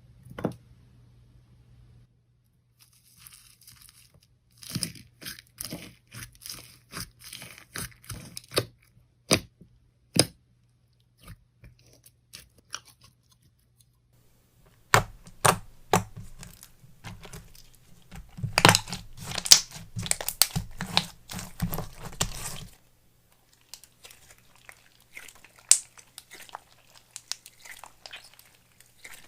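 Slime being squished and stretched by hand, giving clusters of sticky crackling and sharp clicking pops, busiest in the second half.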